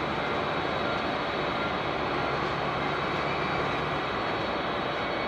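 Jet airliner engines running, a steady rush of noise with a faint high whine over it.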